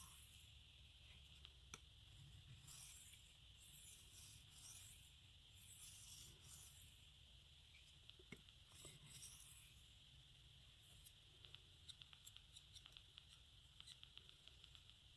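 Faint scraping strokes of a Civivi Ortis knife's 9Cr18MoV steel blade drawn across a whetstone, about eight strokes in the first nine seconds, as the last passes finish the edge. Light ticks follow near the end.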